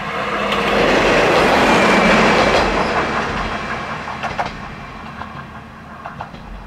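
Diesel railcar running along the track, the noise swelling to its loudest about two seconds in and then easing off, with sharp clacks of the wheels over rail joints.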